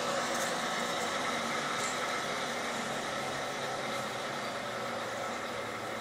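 An engine idling steadily, a low even hum with hiss over it.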